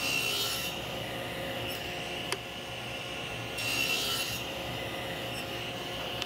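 SawStop table saw running, cutting a quarter-inch-deep dado partway through a walnut board in two passes. The blade bites into the wood at the start and again about four seconds in, with a single sharp click between the passes.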